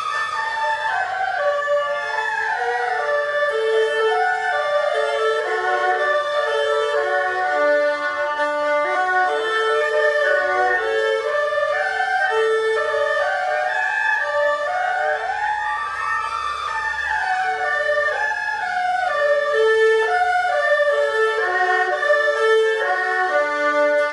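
Erhu bowed through a broken-chord sequence exercise: short arpeggio figures of evenly spaced notes, the same pattern repeated on rising and falling steps.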